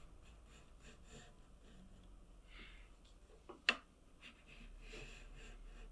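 Small metal block plane taking light strokes across the end grain of a board held in a saw guide, a faint scraping hiss as it trims the cut end. A sharp click comes about three and a half seconds in.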